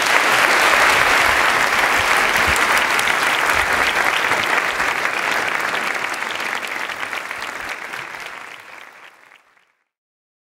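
Audience applauding, a dense, sustained clapping that slowly fades and then cuts off about nine and a half seconds in.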